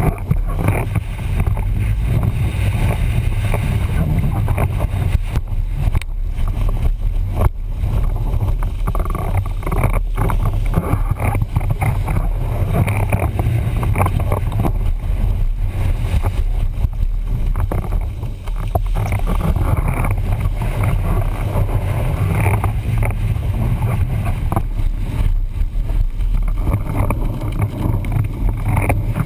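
Windsurf board planing at speed: water rushing and spraying under the board, with wind buffeting the microphone in a steady low rumble and a few sharp knocks from the chop.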